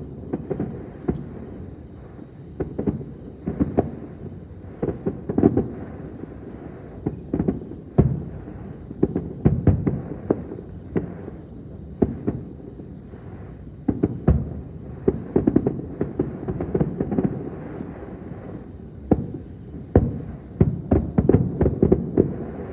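Aerial fireworks shells bursting: irregular clusters of booms and sharp cracks, several a second at the busiest moments, over a low rumble.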